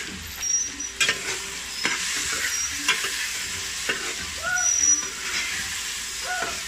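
Meatballs and onions sizzling in a metal pot over a charcoal fire as they are stirred. The utensil knocks and scrapes against the pot about once a second over the first few seconds.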